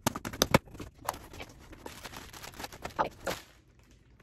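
A cardboard shipping box being opened and handled: a quick run of sharp clicks and scrapes, then rustling of cardboard and packing, dying down in the last second.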